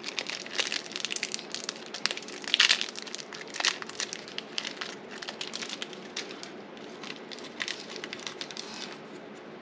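Plastic packaging being handled, crinkling and crackling in a dense run of small sharp clicks, as new screws are got out; it thins out near the end.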